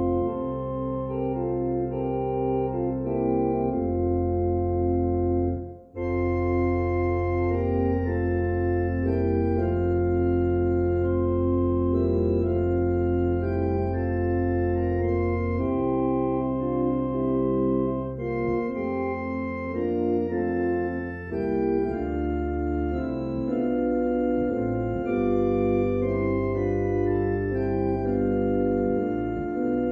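Organ playing slow sustained chords over long held bass notes, with a brief break about six seconds in.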